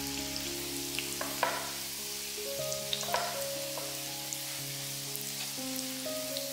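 Zucchini, carrot and potato fritters sizzling in shallow frying oil in a pan, a steady crackling hiss. Silicone spatulas scrape and knock briefly against the pan as they turn the fritters, around a second and a half in and again at about three seconds.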